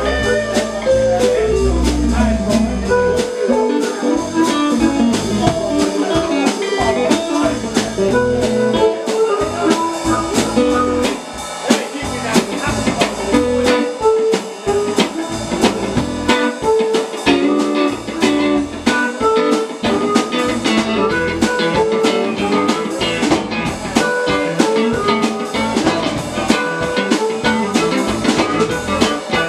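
Live blues-rock band playing: a guitar picks out a lead line over a drum kit, with a heavy bass part for the first few seconds that then thins out.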